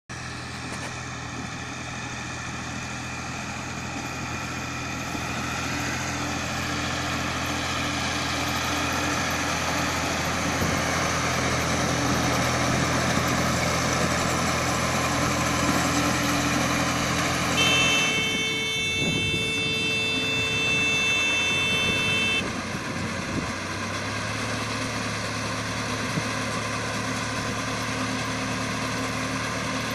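Tractor engine running steadily while it pulls a small round hay baler through the field. For about five seconds past the middle, a steady high-pitched tone sounds over the machinery and then stops suddenly.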